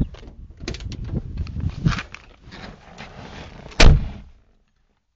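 Rustling and shuffling as a person climbs into a 1975 Volvo 66, then the car door slammed shut with one sharp bang about four seconds in.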